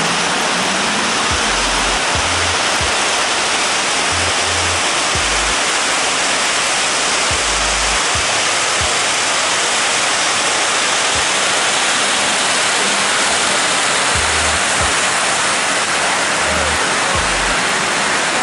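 Steady, loud rush of water cascading down the walls of the 9/11 Memorial reflecting pool into the basin.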